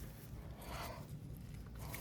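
Quiet background: a low steady hum with a faint soft rustle about three-quarters of a second in.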